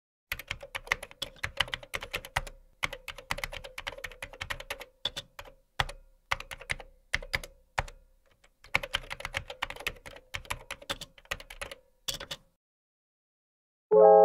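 Rapid typing on a computer keyboard, in runs of clicks a few seconds long with short pauses between them. Piano chords begin just before the end.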